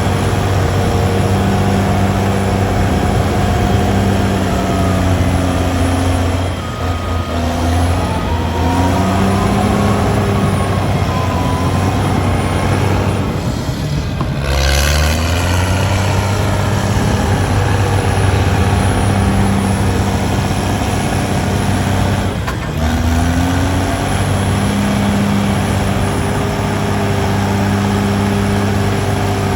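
Heavy diesel earthmoving engine running hard under load. Its pitch sags and then climbs back three times: about 7, 14 and 22 seconds in.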